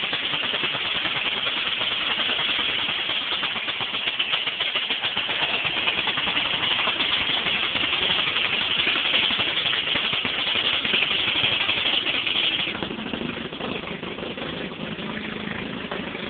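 Riding lawn mower's small engine running hard, a loud, rattly drone. About thirteen seconds in it drops quieter and settles into a lower, steadier hum.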